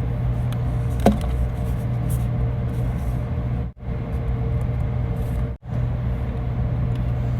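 A steady low mechanical hum with a faint constant tone above it, broken twice by brief silent gaps, and a single short click about a second in.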